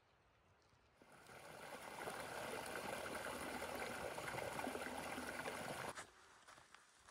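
Creek water rushing, a steady, even wash that swells in over about a second and cuts off suddenly about six seconds in.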